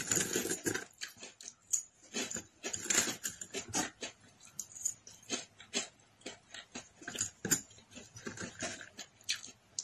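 Close-up chewing of crispy fried food: a quick, irregular run of short crunches and wet mouth sounds.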